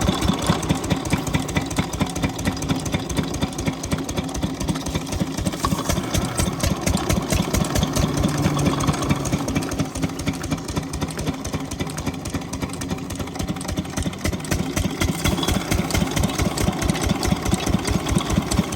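12 hp diesel pump-set engine running steadily with an even, rapid chugging.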